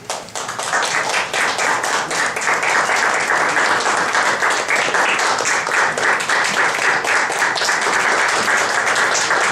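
Audience applauding, breaking out suddenly and then holding at a steady, dense level.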